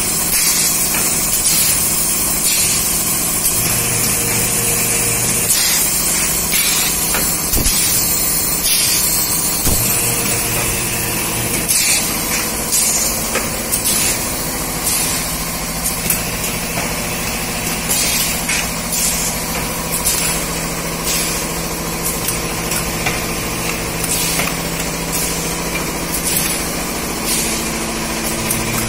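Automatic dignity sheet (medical underpad) machine running: a steady hum of its motors with a high hiss. From about halfway in, short sharp clacks of its mechanism repeat a few times a second.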